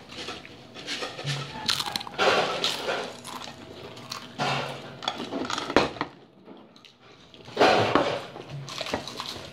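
Crackly crunching of cheese Pringles potato crisps being eaten close to the microphone, in several loud bouts of sharp crackles with quieter gaps between them.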